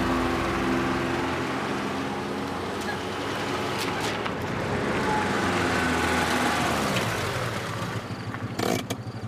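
A car engine running as the car drives along a street, with a few sharp clicks near the end.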